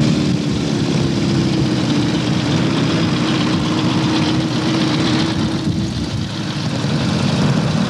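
Motorcycles riding in a group, heard from one of the bikes: a steady engine drone with rushing noise. It eases off briefly about six seconds in.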